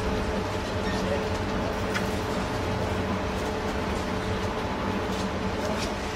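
Articulated tram standing still, with a steady hum from its onboard equipment: two steady tones over an even background noise.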